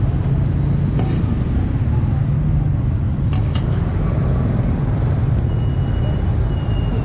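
Steady low rumble of street traffic and engines, with a few sharp knocks of a cleaver striking a wooden chopping block.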